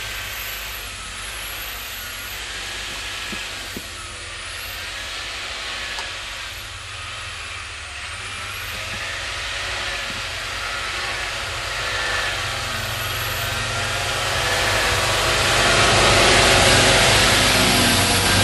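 Diesel engine of a MAN 14.280 truck running steadily with a low rumble, growing louder with more hiss in the last few seconds.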